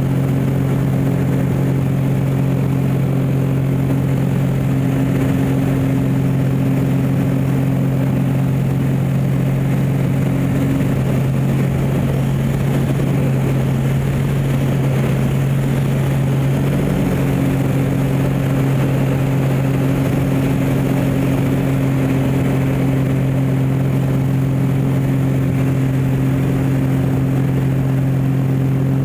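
Aerobatic biplane's piston engine and propeller running steadily under power, heard from the cockpit as a loud, even drone. The drone's tone changes a little for a few seconds in the middle.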